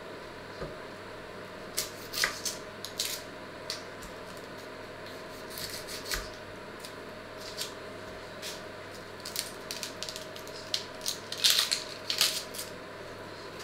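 A kitchen knife scraping and crackling at the dry, papery skin of an onion as it is peeled over a wooden chopping board, in short scratchy clusters about two seconds in and again, loudest, near the end. A steady low hum runs underneath.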